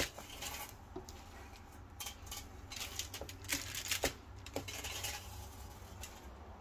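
Aluminium foil crinkling and rustling in short crackles, several times, as marinated chicken legs are pushed into place on a foil-lined grill tray by hand.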